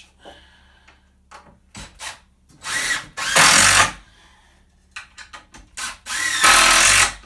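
Cordless drill driving 2 1/2-inch deck screws into 2x4 lumber, twice, each run lasting about a second, with small knocks of handling the boards between them.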